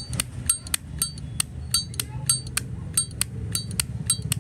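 Zippo lighter's hinged metal lid being flicked open and snapped shut over and over. It gives quick metallic clicks, several with a short ringing clink, about four or five a second.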